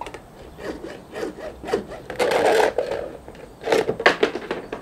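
Hacksaw cutting through white PVC guttering: a series of uneven back-and-forth saw strokes, about six, the longest a little over two seconds in.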